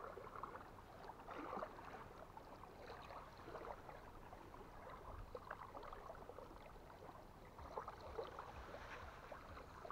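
Faint handling sounds: small scattered clicks and rustles as a plastic bait jar with a snap lid and a groundbait-packed feeder are handled, over a low wash of water at the shore.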